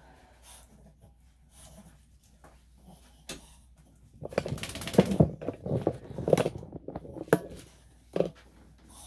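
Sounds from a small Maltese-cross dog on the grooming table, loudest for about three seconds in the middle, with a few sharp clicks around them.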